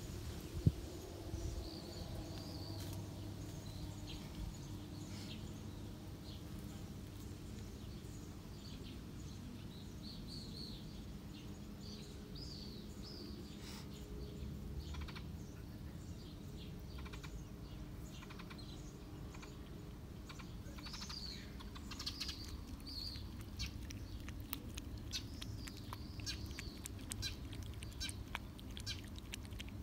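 Small birds chirping in short, repeated calls, more often in the second half, over a steady low background hum.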